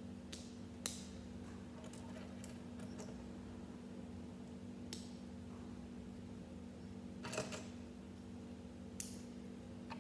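Plastic Lego bricks clicking and snapping as they are handled and pressed together: sharp single clicks every second or so, with a small cluster of clicks about seven seconds in, over a steady low hum.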